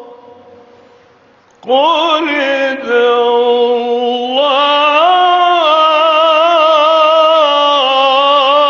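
Solo man reciting the Quran in the melodic, drawn-out tajweed style through a microphone. After a brief lull, one long phrase begins nearly two seconds in, with sustained notes, slow steps in pitch and wavering ornaments.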